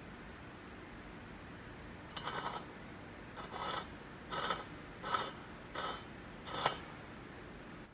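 Pointed steel scribe scratching marking lines into the rusty surface of a 2-inch schedule 40 steel pipe: six short scraping strokes, about one every 0.7 seconds, starting about two seconds in.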